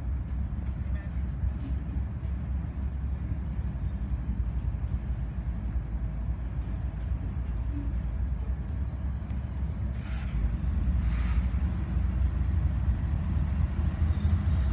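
Diesel freight locomotive rumbling as it pulls in, growing louder over the last few seconds. A bell rings steadily, about two and a half dings a second.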